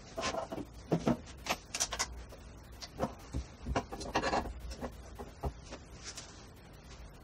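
Sped-up workbench handling noise: quick, irregular clicks, taps and rubs as a hand arbor press is worked and a leather sheath piece is moved about on the wooden bench. The noises thin out toward the end.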